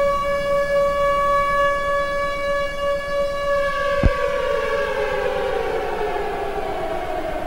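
Civil defense siren sounding a steady tone, then after a sharp click about four seconds in, its pitch slowly falls as it winds down.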